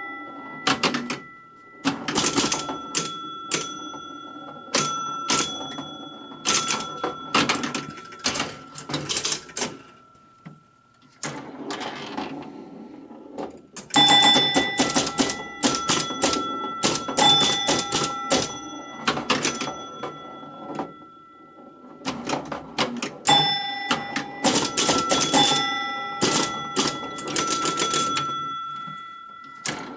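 Gottlieb Airport electromechanical pinball machine in play: chimes ringing at a few fixed pitches over rapid clicking of relays and score reels, in bursts with a short lull about ten seconds in.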